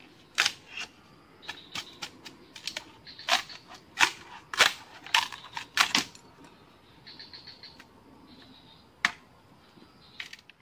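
Sharp, irregular knocks and cracks of a hand tool working a bamboo pole, with lighter ticking between the louder strikes. The strikes come thickest in the first six seconds and thin out toward the end.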